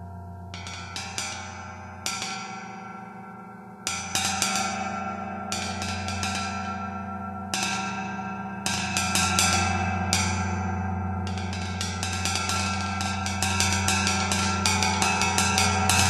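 A 26-inch vintage Zildjian Turkish tam-tam tapped with the tips of wooden drumsticks. Scattered taps come first, then quick rolls from about halfway through. The gong's low ringing hum builds and gets louder under the strikes.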